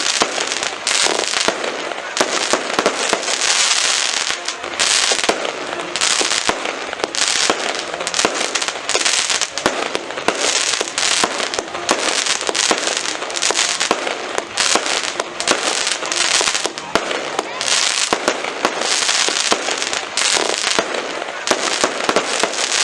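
Fireworks going off without a break: a dense run of sharp bangs and pops, with bursts of fizzing crackle about every second.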